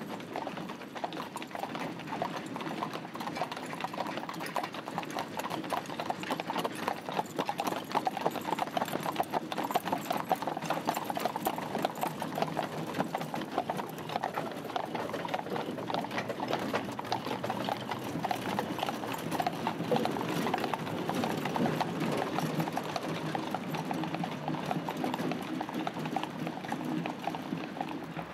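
Hooves of a horse team clip-clopping at a walk on a wet paved road, as the horses draw a caisson.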